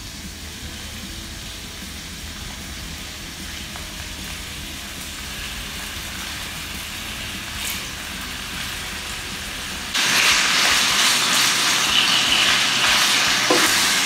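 Strips of beef tenderloin sizzling in hot oil in a frying pan as they are laid in to sear. The sizzle grows steadily, then jumps suddenly louder about ten seconds in.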